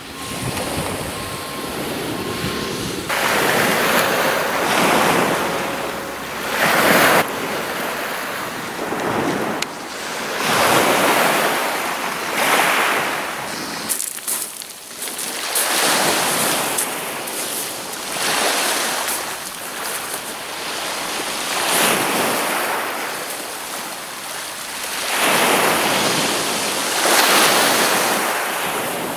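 Small waves breaking and washing over a shingle beach, surging every few seconds, with wind buffeting the microphone. A few short beeps sound near the start.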